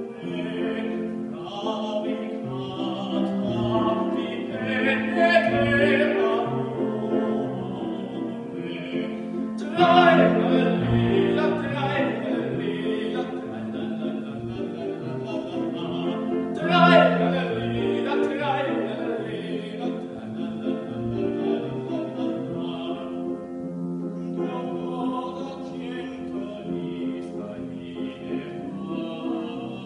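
A man's classically trained operatic voice sings with vibrato over a grand piano accompaniment. The voice swells loudest three times, about 5, 10 and 17 seconds in.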